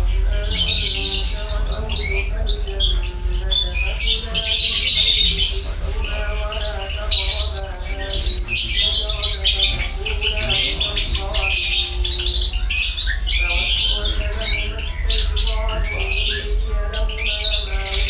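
Caged branjangan (Javan bush lark, Mirafra javanica) singing a long, nearly unbroken run of rapid, high chattering and trilling notes, with only brief pauses.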